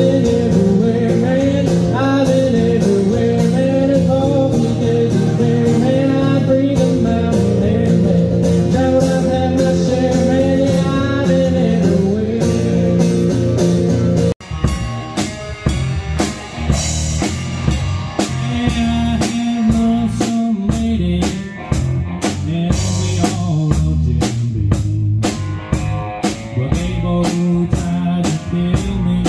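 Live music: a solo acoustic guitar playing a country song, then an abrupt cut about halfway through to a band with a drum kit and guitar playing a blues-rock groove.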